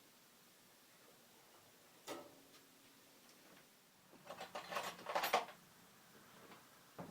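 A single knock about two seconds in, then a short flurry of clicks and metallic rattles around four to five seconds in: hands handling and adjusting parts of a bandsaw while fitting its blade.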